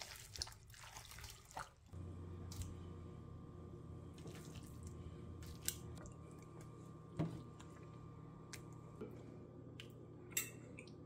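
Faint clicks and soft wet scraping of utensils on food: tongs pulling apart smoked pork butt in a foil pan, then a spoon serving beans onto a plate. A steady low hum comes in about two seconds in.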